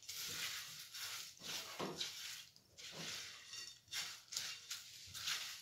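Silicone spatula stirring cornflakes coated in melted chocolate and butter in a metal saucepan: a run of short scraping strokes, about two a second.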